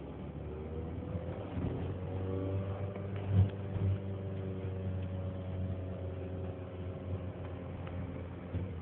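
An engine running steadily with a low hum, and a single loud thump about three and a half seconds in.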